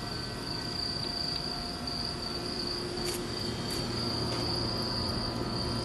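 A massed swarm of crickets singing: a dense, continuous high-pitched chorus. A low steady hum joins underneath from about halfway through.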